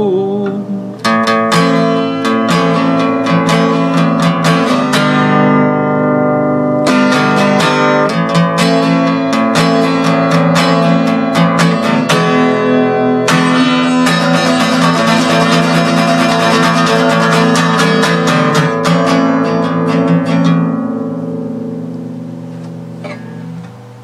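Acoustic guitar strummed in a steady rhythm as the song's instrumental ending, with two brief breaks in the strumming; the last chord rings out and fades away about twenty seconds in.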